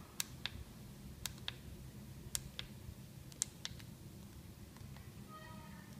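Small plastic pushbuttons on a HanRongDa HRD-737 handheld radio receiver being pressed, faint clicks in pairs as each key goes down and comes back up, about four presses. A short electronic tone sounds near the end.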